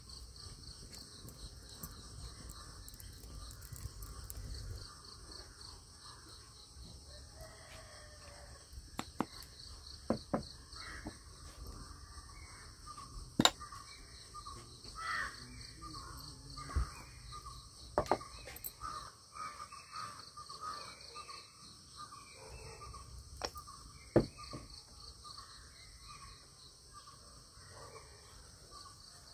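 Crows cawing again and again over a steady chirring of crickets, with a few sharp clicks of utensils against clay pots and bowls.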